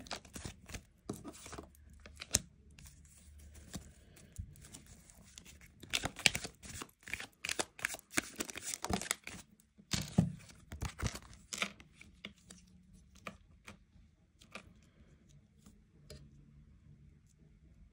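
Tarot cards being shuffled and handled: irregular bunches of crisp rustles and snaps, thinning to a few faint clicks near the end.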